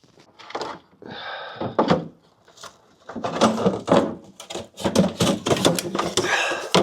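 Irregular knocks, clicks and scraping of a socket wrench on an extension, working a hard-to-reach screw loose in a tight space.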